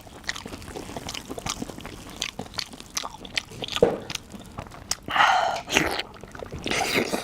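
Close-up chewing and biting: a person eating beef tendon, with many small wet mouth clicks and smacks. Two louder, longer noisy sounds come about five and about seven seconds in.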